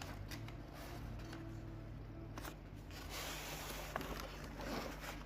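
Faint rustling and a few light clicks of a toy kit's box and packaging being opened and handled, with a steady low hum underneath. The rustle is strongest about three seconds in.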